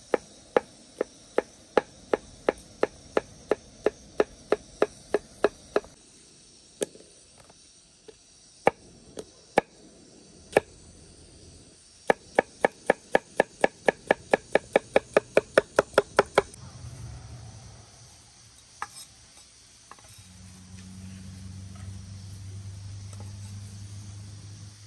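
Kitchen knife chopping cucumber on a wooden cutting board: a steady run of sharp taps, about three a second, then a few single strikes, then a faster run of about five a second that stops about two-thirds of the way through. A low steady hum takes over near the end, with insects droning throughout.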